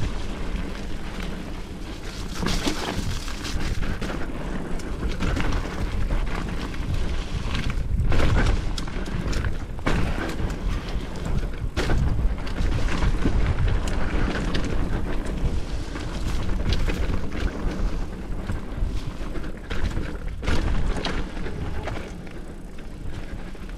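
Mountain bike riding a dirt trail: a steady heavy rumble of wind and trail noise, with the bike knocking and rattling over bumps; the sharpest knocks come about 8, 10, 12 and 20 seconds in.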